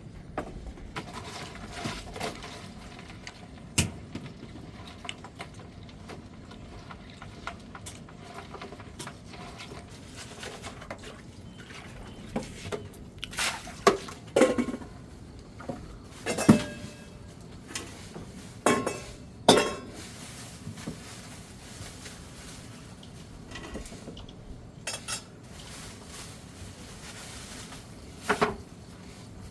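Pots, dishes and utensils clinking and knocking during kitchen work. The sharp knocks are scattered, some with brief ringing, bunched around the middle of the stretch and once more near the end.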